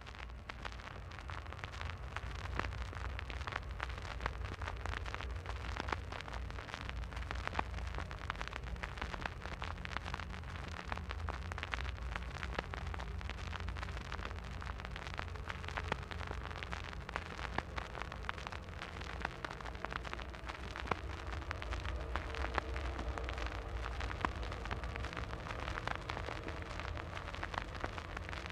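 Vinyl record surface noise on a portable record player: dense crackle and pops over a low rumble, with faint held tones coming through near the end.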